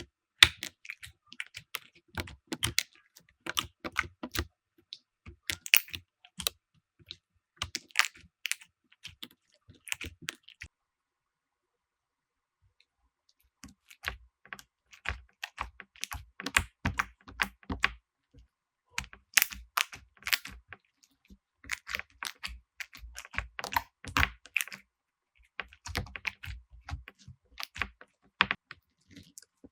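Slime being squeezed and pressed by hand, giving dense, irregular crackling clicks and pops, with a pause of about three seconds in the middle.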